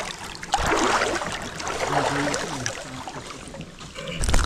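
Water splashing and sloshing as a hooked largemouth bass is hauled out of a shallow river, loudest about a second in, with a sharp low thump of handling near the end.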